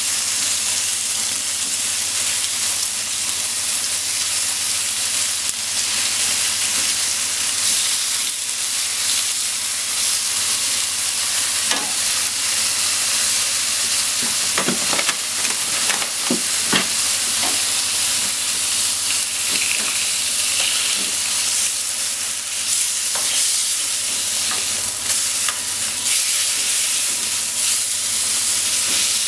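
Bacon sizzling steadily as it fries in a non-stick pan. About halfway through come a few short clicks as tongs turn the strips against the pan.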